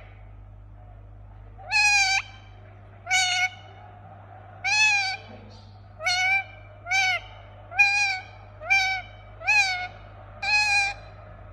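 Indian ringneck parakeet giving a series of about nine short calls, roughly one a second, each rising then falling in pitch.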